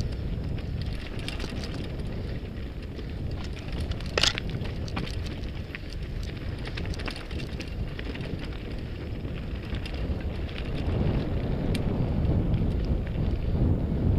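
Mountain bike rolling down a rocky trail of loose stones. The tyres crunch over gravel, the bike rattles with many small clicks, and wind buffets the action camera's microphone, louder from about eleven seconds in. A brief sharp squeak about four seconds in.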